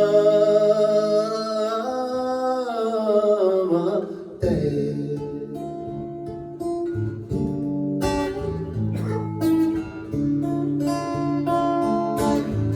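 A singer holds a long, wavering sung note over acoustic guitar, ending about four seconds in; then the acoustic guitar plays on alone, picked notes with a few strums.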